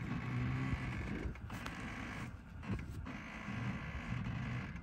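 Porsche Cayenne 4.5 S V8 running at low revs as the SUV crawls slowly over a steep grassy slope, with uneven low creaking.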